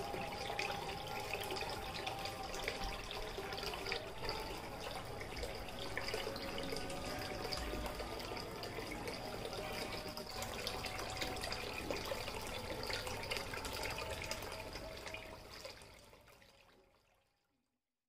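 Small cement tabletop waterfall fountain running: water pouring from bowl to bowl and splashing into the basin below, a steady trickling splash. It fades out near the end.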